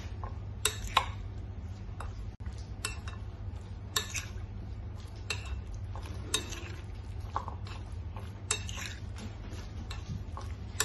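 Cubed raw chicken being mixed by hand with dry spices in a glass bowl: wet squishing with irregular clinks and knocks against the glass, over a steady low hum.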